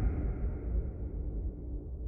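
Low rumbling horror sound effect fading out: the higher part dies away first, leaving a deep rumble that keeps getting quieter.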